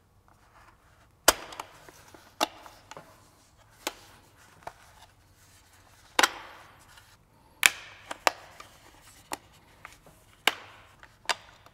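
Plastic retaining clips of a Honda Civic Type R FL5 steering wheel's front fascia snapping loose as the trim is pried off by hand: about a dozen sharp clicks and snaps at irregular intervals, the loudest about a second in and again around six and seven and a half seconds in.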